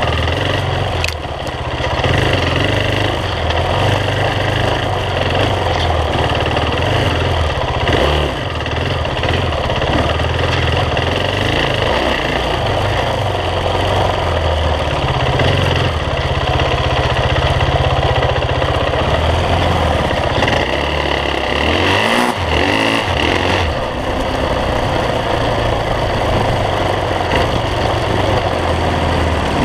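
Dirt bike engine running close up from a camera on the bike, the throttle rising and easing as it rides, with a few brief dips where it backs off.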